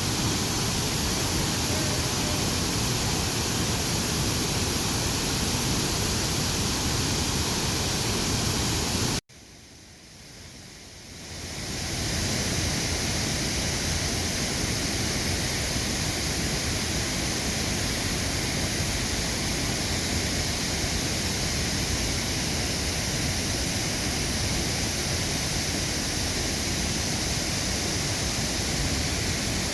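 Steady rushing noise of a waterfall. About nine seconds in it cuts out abruptly, then fades back up over two or three seconds to the same steady rush.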